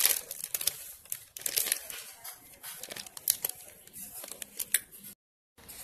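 Thin plastic piping bag crinkling and rustling in irregular bursts as thick whipped cream is spooned into it, with scattered small clicks. The sound drops out completely for a moment near the end.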